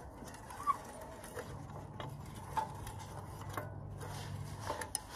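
A spanner clinking against the bolts of a chaff cutter's rusty blade wheel as it is worked on: a few sharp metal clinks at uneven intervals. A faint low hum runs underneath.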